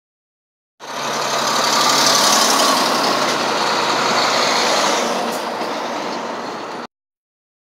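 Semi-trucks driving past one after another, with engine and tyre noise swelling as the nearer rig goes by and then fading. The sound starts abruptly about a second in and cuts off abruptly near the end.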